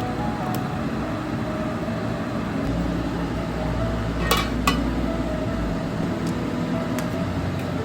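Steady background noise with two sharp clinks of dishware or utensils in quick succession about four and a half seconds in.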